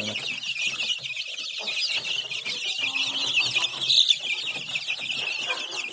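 A crowd of young chicks peeping continuously as they feed, many short high cheeps overlapping into a steady chatter.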